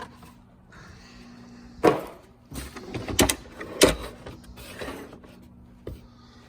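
Plastic tool case and its packaging being handled: rustling with a few sharp clacks and knocks, the loudest about two, three and four seconds in.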